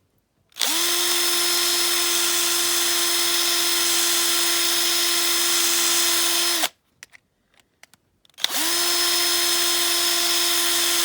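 Small electric drill drilling out the rivet on a die-cast toy car's base: it spins up to a steady whine, runs for about six seconds, stops, then starts again near the end.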